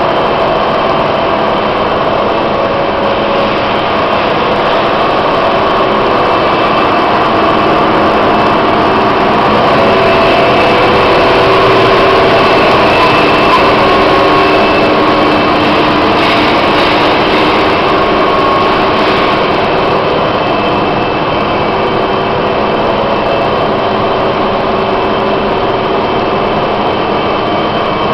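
Machinery of a wood pellet production line running: a steady, loud industrial drone from motors and fans, with several held humming tones, a little louder about halfway through.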